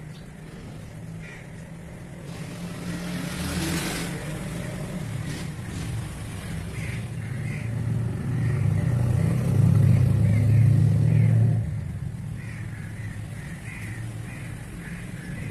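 A motor vehicle's engine hums low, growing louder over several seconds, then drops off suddenly about three-quarters of the way through.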